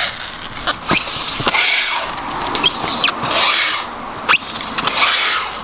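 Ears of corn being handled and packed: repeated crinkly rustling in bursts, with a few sharp knocks and clicks.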